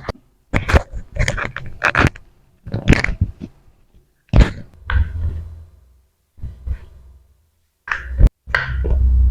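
Irregular sharp thumps and knocks from hands working on a patient's body during a chiropractic adjustment, with short breathy vocal sounds between them and a low rumble of handling.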